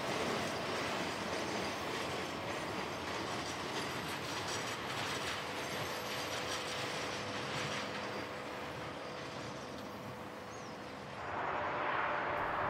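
Rail cars at the tail of a slow freight train rolling past and away, steel wheels running on the rails, with a faint steady ringing tone in the middle stretch. About eleven seconds in, the sound switches to a louder, even noise.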